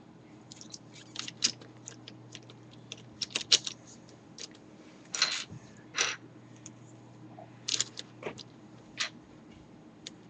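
Plastic pieces of a V-Cube 5 (a 5x5 twisty puzzle cube) clicking and snapping against each other as it is reassembled: irregular sharp clicks, some louder than others. A steady low hum runs underneath.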